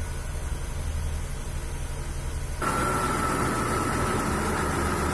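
Nissan March engine idling just after an oil change, running so the new oil filter and sump plug can be checked for leaks. About two and a half seconds in, a louder steady whir with a high whine sets in suddenly.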